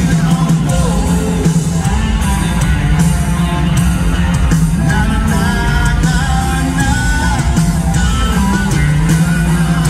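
Live country-rock band playing at full volume, with a lead singer's voice over drums, electric guitar and keyboards, recorded from the arena crowd.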